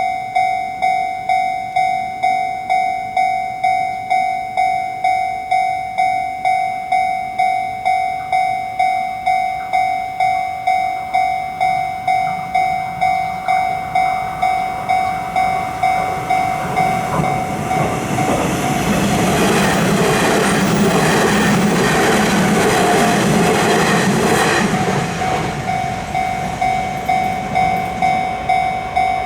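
Japanese level-crossing warning bell ringing its steady repeated 'kan-kan' strikes throughout. A little past halfway a train passes through the crossing, its running noise swelling to a loud rush with a low rumble for several seconds and then fading while the bell keeps ringing.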